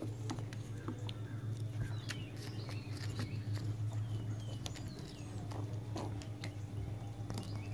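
A litter of young puppies playing and scuffling, with a few short high falling squeaks and yips and scattered taps of paws and claws, over a steady low hum.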